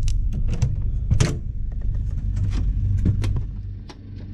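A quick, irregular run of sharp clicks and knocks over a steady low rumble, the rumble falling away near the end.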